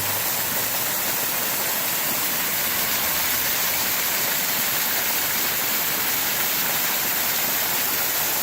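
Small waterfall rushing: a steady hiss of falling water, even throughout.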